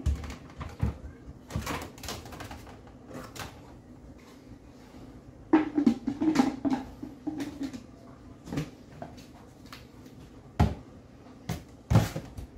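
Plastic food storage containers and lids clattering and clicking as they are handled and shifted about on a kitchen cupboard shelf, in irregular knocks, with a busier stretch about halfway and a sharper knock near the end.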